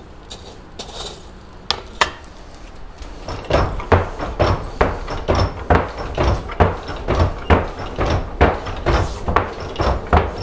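Hand-worked blacksmith's forge bellows pumping air into the fire, which heats the iron. After a quiet start with a couple of clicks, steady strokes begin about three and a half seconds in, two to three a second.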